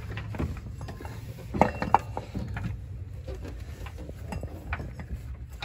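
Scattered light metallic clinks and knocks as an automotive A/C compressor is worked by hand down into its mounting in an engine bay, the two loudest close together about a second and a half in, over a steady low hum.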